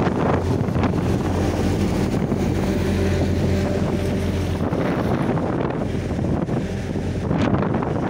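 HAMM tandem road roller's diesel engine running at a steady hum, with wind buffeting the microphone, strongest at the start and again near the end.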